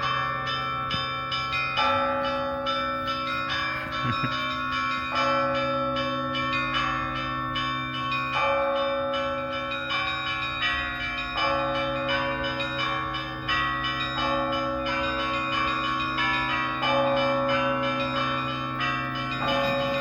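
Russian Orthodox church bells pealing: quick, repeated strokes of small bells over the deep, lingering ring of larger bells, the pattern of notes changing every few seconds.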